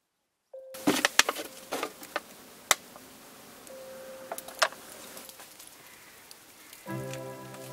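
A plastic bottle crackling and clicking as it is dipped and filled in a tub of homemade liquid fertilizer, with water sloshing and a faint steady buzz. Background music begins near the end.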